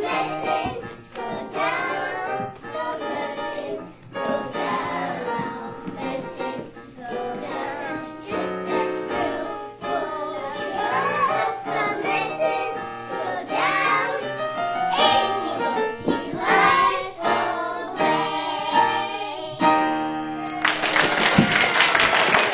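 A group of young children singing a song together with piano accompaniment. Audience applause breaks out near the end as the song finishes.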